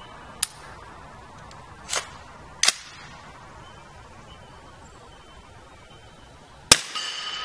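Suppressed 300 Blackout AR-15 short-barrelled rifle firing one subsonic 220-grain round through an Octane 9 HD suppressor near the end, a sharp report followed by a ringing tone for about a second. Three lighter sharp clicks come before it in the first three seconds.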